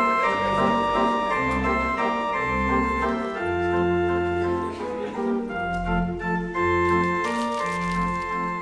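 Title theme music led by an organ-like keyboard playing held chords over a moving bass line.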